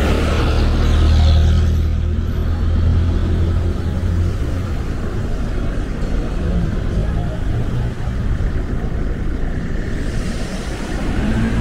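Street traffic: a motor vehicle passing close by with a low engine rumble for the first few seconds, then steady traffic noise, with another vehicle approaching near the end.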